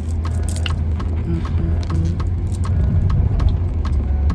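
Car cabin with the steady low rumble of the engine and road, a regular ticking about twice a second, and faint music in the background.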